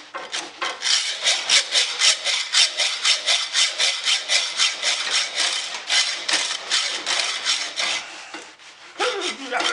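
Hacksaw cutting through the metal shaft of a radio's rotary band switch in quick, even back-and-forth strokes, about three a second. The sawing stops briefly near the end, then starts again.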